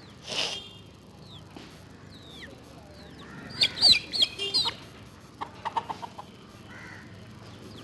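Domestic chickens clucking and squawking: a run of loud, sharp squawks about three and a half seconds in, then a quick string of about six clucks. Faint high chirps come earlier.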